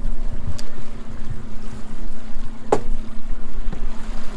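Boat engine running steadily at idle, a constant hum, with wind buffeting the microphone. A single sharp knock about two and a half seconds in.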